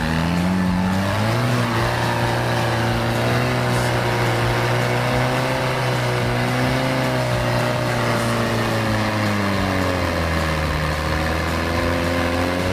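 Off-road trial buggy's engine working at low revs under load as it crawls out of a mud hole, a steady note whose revs rise a little about a second in and sag around ten seconds in.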